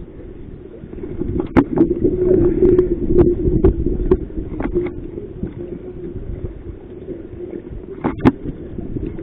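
Strong wind buffeting the microphone in a low, rough rumble that swells for a few seconds, with several sharp knocks and a louder double knock near the end.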